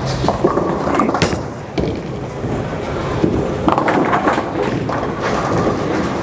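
Storm Pitch Black urethane bowling ball rolling down the lane and hitting the pins, with a sharp knock about a second in and a clatter of pins about four seconds in, over the steady din of the bowling alley.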